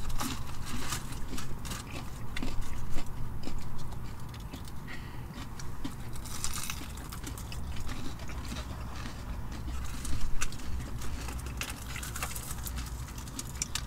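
Close chewing and crunching of crispy fried chicken wings, with many small irregular crackles and smacks.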